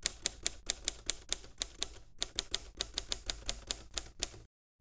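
Typewriter sound effect: a quick, even run of sharp keystroke clacks, several a second, stopping shortly before the end.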